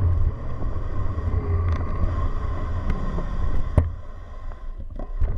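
Bicycle riding past queued cars, heard through a bike-mounted camera's microphone: a low steady rumble from road and wind, with a faint steady whine and a few sharp clicks, the loudest a little before four seconds in. The rumble eases near the end.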